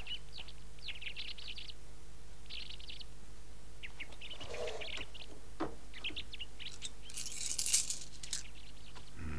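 Birds chirping in short high calls, a light knock about halfway, then a brief jingle of metal coins near the end, the loudest sound.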